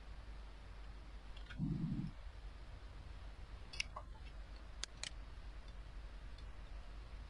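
A few sharp computer mouse and keyboard clicks, one about four seconds in and two close together about a second later, over a steady low hum. A soft low thump comes about two seconds in.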